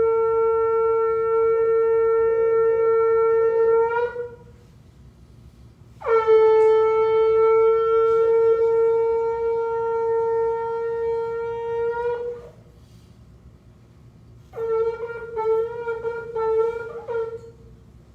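Shofar (ram's-horn trumpet) blown in long, steady blasts: one ends about four seconds in and a second sounds from about six to twelve seconds. Near the end comes a run of short, broken notes.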